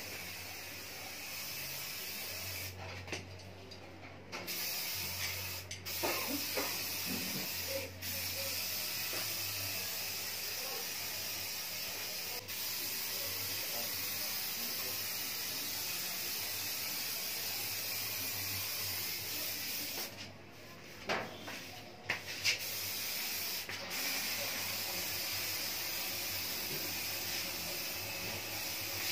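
Aerosol spray can of clear top-coat paint hissing in long continuous sprays, stopping briefly twice, about three seconds in and about twenty seconds in.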